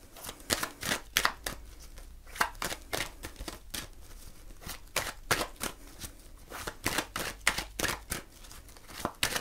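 A deck of oracle cards being shuffled by hand: an irregular run of crisp card slaps and flicks, one to three a second.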